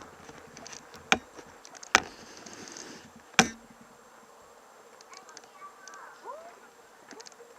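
Three sharp knocks, the second about a second after the first and the third about a second and a half later, over a faint steady hum; a few faint rising chirps follow near the end.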